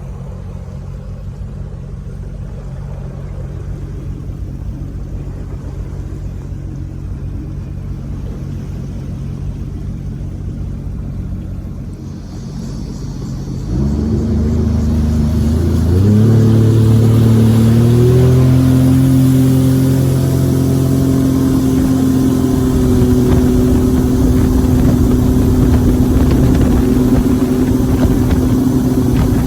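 Watercraft engine idling with a steady low hum. About fourteen seconds in, the throttle opens and the pitch climbs over a few seconds. It then settles into a steady, higher-pitched run at speed as the craft gets under way.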